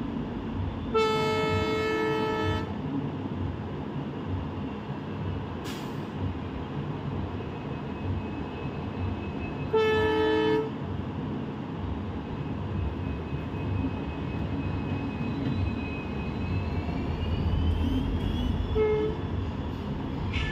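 WDP4D diesel-electric locomotive passing with its train: a long horn blast about a second in, a shorter blast near ten seconds and a brief toot near the end. Under the horn is the rumble of the engine and wheels, which grows as the locomotive comes level and the coaches roll by.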